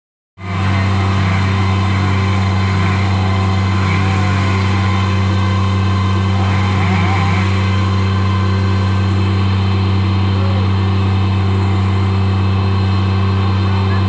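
Bobcat MT85 mini track loader's diesel engine running steadily, an even drone that holds level with no revving.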